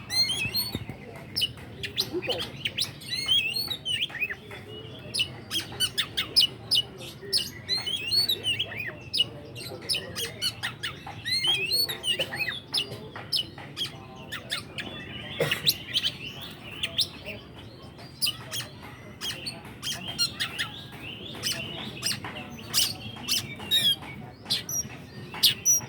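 Oriental magpie-robin (kacer) singing continuously: a rapid mix of sharp clicks, short whistled notes and curling trilled phrases with harsh squawky notes between them.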